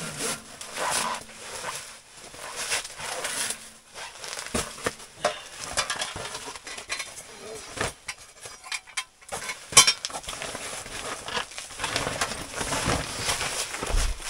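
Metal clinks and knocks from parts of a small sheet-metal tent stove being handled and fitted, mixed with rustling of clothing and gear, with one sharp metallic click a little under ten seconds in.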